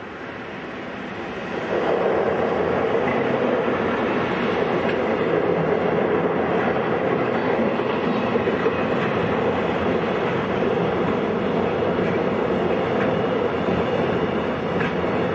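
Freight train of container wagons crossing a steel girder railway bridge. The rumble swells and jumps in loudness about two seconds in, then holds as a loud, steady rumble of wagon wheels on the rails.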